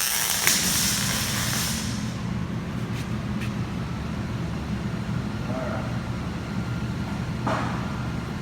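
Welding arc hissing and crackling for about two seconds as a tack weld is laid, starting with sharp clicks, then a steady low hum for the rest.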